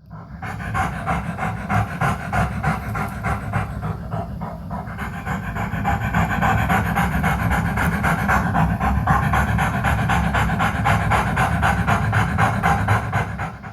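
A dog panting rapidly and steadily, with fast, even breaths. It starts and stops abruptly, like an inserted sound effect.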